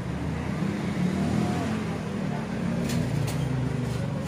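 Street traffic: a motor vehicle's engine running close by, a steady low rumble that swells about a second in, with a couple of short clicks about three seconds in.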